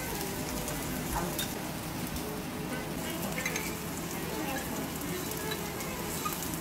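Food sizzling steadily in oil on a hot flat steel griddle, with a few light clicks of a metal spatula and knife on the plate.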